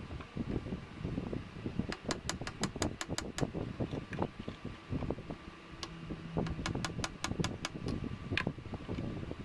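A lathe faceplate and its workpiece being turned and nudged by hand against a dial indicator while it is centred, giving low rubbing and handling noise. Two runs of quick clicks, about six a second, come about two seconds in and again about six seconds in.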